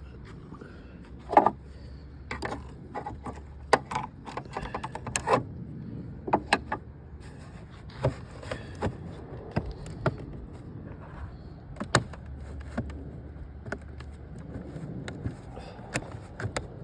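Irregular clicks, taps and knocks of plastic parts being handled and pressed into place as a car door mirror assembly is fitted, the loudest knock about a second and a half in, over a low steady hum.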